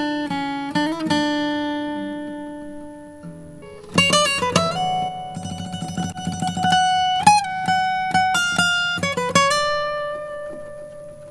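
Recorded guitar solo playing back: single plucked notes ringing out with pitch slides between them. A few notes at the start fade away, then a new phrase comes in strongly about four seconds in. The playback runs through a compressor set to about 4:1.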